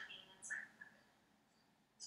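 Near silence: a pause in a woman's talk, with the tail of a word at the start and one short faint sound about half a second in.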